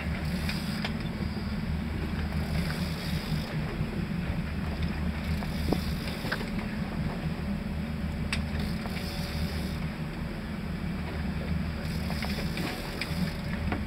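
Fishing boat's engine running steadily at idle, a dense low rumble, with wind and sea noise and a brief hiss every two to three seconds.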